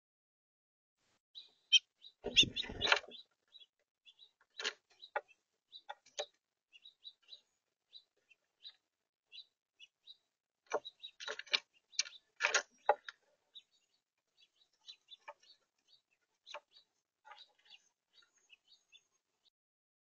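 Red-bellied woodpecker pecking and knocking at a seed-filled feeder tray: scattered sharp taps, with a loud clatter about two seconds in and another cluster of knocks a little past the middle. Faint short bird chirps are heard between the taps.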